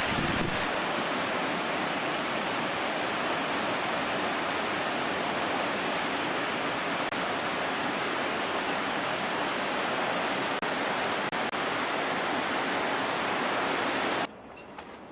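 Steady rushing roar of Yosemite Falls' falling water, an even hiss without pauses, which cuts off abruptly near the end.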